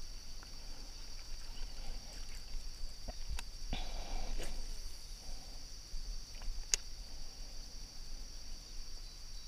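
Insects chirring in a steady, high, unbroken drone. A few faint sharp clicks and a brief noisy swish come about four seconds in.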